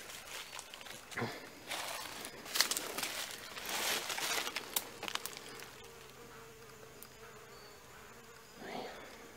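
Rustling in dry leaves and handling noise with a few sharp clicks as a handheld camera moves close over the ground. About halfway through this gives way to a faint steady buzzing hum.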